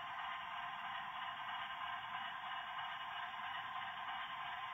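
HO scale model train running along the track, a steady, even hiss-like running noise with no changes.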